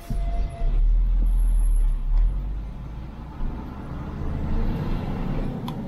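Low rumble of a motor vehicle on a downhill mountain road. It starts suddenly, is loudest for the first two seconds, then eases to a steadier, lower rumble.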